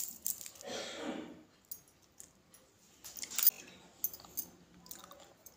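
Crisp fried, gram-flour-coated peanuts being broken apart by hand and dropped onto a steel plate: light crunchy cracks and small clinks against the metal, one cluster near the start and another about three seconds in.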